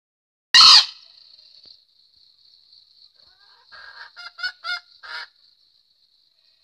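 Green junglefowl calling: one short, very loud harsh call about half a second in, then four short pitched calls in quick succession about four to five seconds in.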